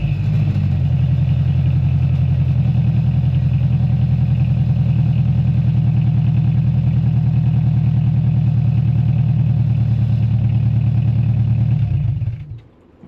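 Turbocharged Honda S2000's four-cylinder engine idling steadily through a cheap single-exit exhaust, with an even low pulse. It stops abruptly about twelve seconds in.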